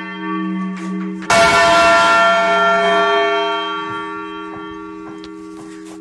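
Large bronze church bell in the tower struck once at close range about a second in, its tone ringing on and slowly fading over the hum of the previous stroke dying away.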